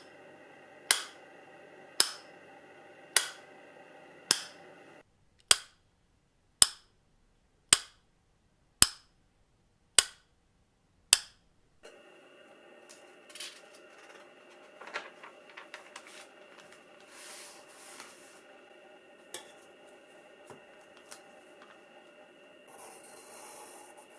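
A steady whirring, grinding hum of several fixed tones: the Panasonic Lumix FZ1000's internal noise, picked up by its built-in microphone. Sharp clicks sound over it about once a second. About five seconds in, the hum cuts out completely while the clicks carry on alone. About twelve seconds in, the hum returns, with faint irregular rubbing and tapping.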